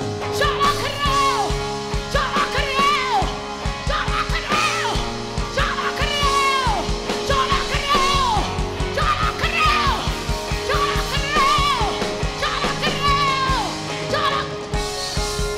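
A live worship band playing a Christian song: a woman sings the lead into a microphone in phrases that slide down in pitch at their ends, over electric guitar and bass guitar with a steady beat.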